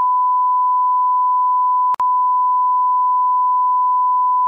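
Censor bleep: one steady beep tone laid over swearing, broken by a split-second gap about two seconds in.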